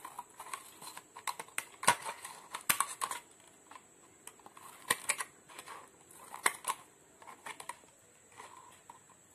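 Steel scissors snipping through a thin plastic bottle wall, cutting it into strips: a string of sharp, irregular snips and clicks.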